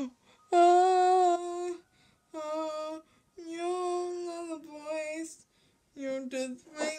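A girl singing alone without accompaniment: a series of long held notes with short breaks between them.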